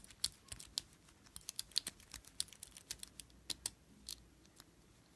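A pick being rocked in the keyway of an old Yale wafer padlock, the wafers and pick giving light, irregular clicks several times a second that thin out near the end.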